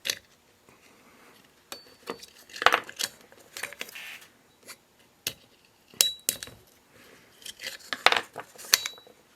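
Irregular metal clinks and scrapes of small tools and parts being handled while seals are picked out of a hydraulic cylinder gland, a few clinks leaving a brief high ring.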